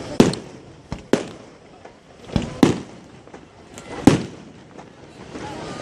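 Fireworks display: aerial shells bursting with sharp bangs at irregular intervals, about five loud ones and several fainter ones, each trailing off briefly.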